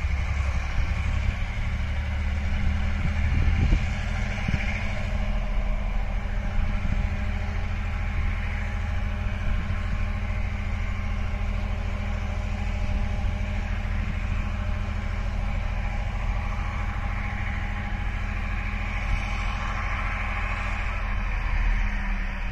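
Diesel engine idling steadily: a low, even hum with a few steady tones over it.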